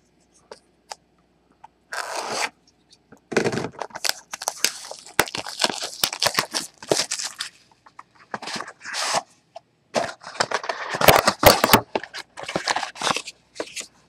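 A sealed trading-card box and its plastic wrapping being torn and crinkled open by hand, in irregular bursts with short pauses and a few sharp crackles.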